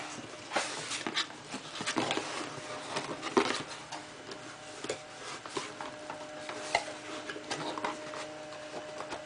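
Cardboard processor retail box being opened by hand: irregular rustling, scraping and tapping as the paperboard tab is pulled and the inner flaps are folded back.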